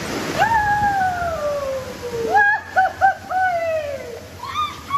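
A boy calling out on a raft ride: a long 'whooo' that falls steadily in pitch, then a quick run of short hoots and another long falling call, with more short calls near the end, over a faint rush of water.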